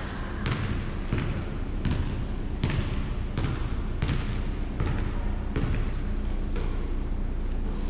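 Basketball dribbled on a hardwood gym floor, bouncing steadily about every three-quarters of a second, with a couple of short high squeaks in between.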